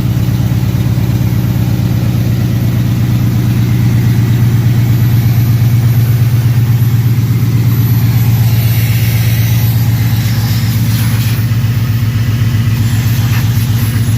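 LS1 5.7-litre V8 in a Camaro Z28, fitted with freshly installed long-tube headers, idling loud and steady with an even, fast exhaust pulse.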